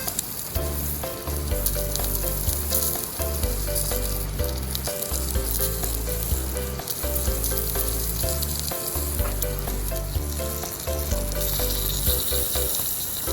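Sausages sizzling and spitting in a skillet, a steady crackle of frying fat. Background music with a bass line plays underneath.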